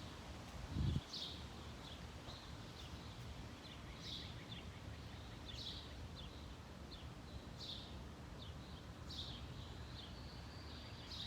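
Birds chirping outdoors, short high calls repeating every second or two over a steady background hiss, with a thin steady high note near the end. A brief low thump about a second in.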